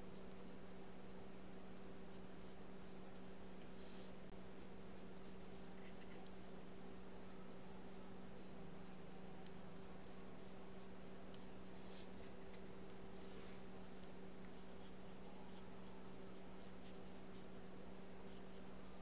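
Paintbrush strokes on paper laying on gouache: many faint short scratchy dabs and strokes, some in quick runs, over a steady low electrical hum.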